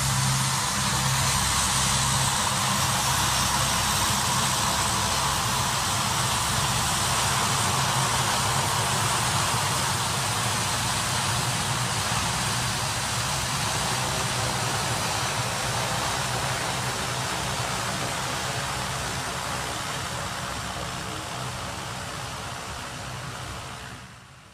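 Four turboprop engines of a ski-equipped LC-130 Hercules running as the aircraft rolls past and away across the snow: a steady propeller drone with a low hum under a broad hiss. It fades as the plane moves off, then drops away sharply at the very end.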